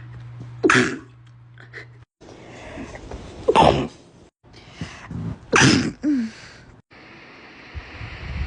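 Three stifled sneezes, each a short sharp burst, coming about three seconds apart.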